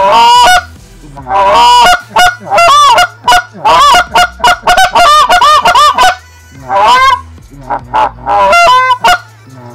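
Hammer Calls Law short-reed goose call blown in a run of honks: a few longer notes, then a fast string of short clucks, then more short notes near the end. It is a test blow after the wedge was moved forward from a too-deep setting, and the tone is now really close to the intended tune.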